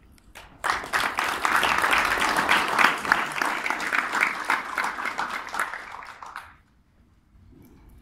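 Audience applauding, starting under a second in, then dying away after about six seconds.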